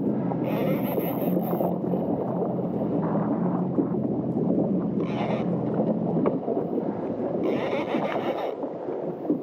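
Wind buffeting a GoPro microphone over choppy sea around a jetski, with a faint steady low hum that fades out about six seconds in. Short hissing bursts come and go three times.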